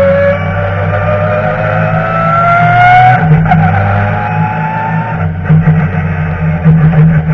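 BMW touring race car's engine heard from inside the cockpit, revving up under acceleration with a rising note. It changes gear about three seconds in and pulls up again. From about five seconds in the sound turns choppy, with rattles and clicks over a steady low drone.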